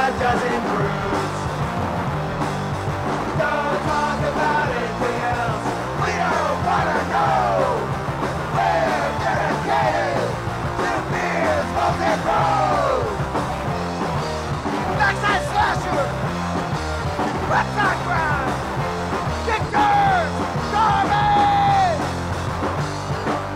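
Punk rock song with yelled vocals whose lines slide down in pitch, over a steady band backing.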